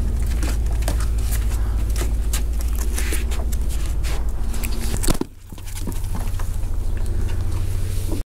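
Light clicks and scuffs of a toy poodle puppy's paws and a person's clogs on a wooden deck, over a steady low rumble on the microphone. Just after five seconds a single loud knock comes as the puppy bumps into the camera.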